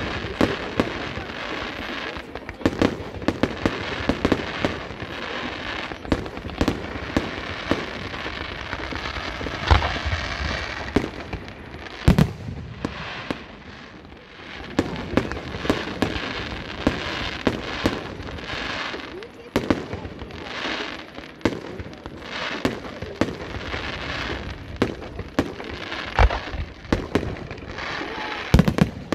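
Fireworks display: aerial shells bursting one after another, often several bangs a second, the loudest bang about twelve seconds in.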